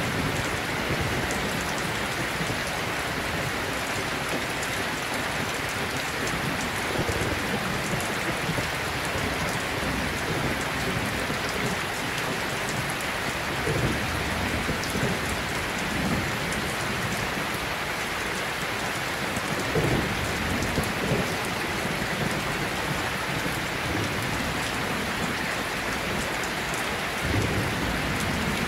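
Steady rain, an even hiss of falling water with a few brief low rumbles.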